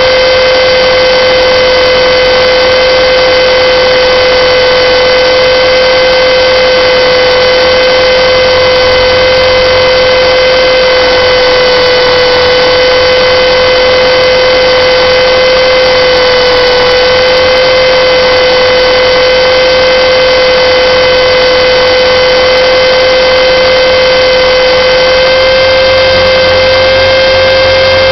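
Align T-Rex 450 electric RC helicopter in flight, heard from a camera mounted on it: a loud, steady whine on one strong pitch with a ladder of overtones, wavering only slightly, over a rushing noise.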